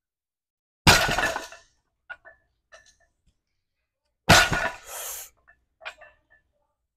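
A loaded deadlift barbell set down hard on the lifting platform twice, about a second in and again just past four seconds, each a sharp impact with a short rattling clatter of the plates, and a few light clinks of metal between.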